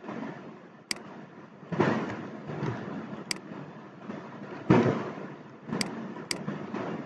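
Computer mouse clicks and keyboard keystrokes: several short sharp clicks, with two louder thumps about two seconds and nearly five seconds in, over a steady background hiss.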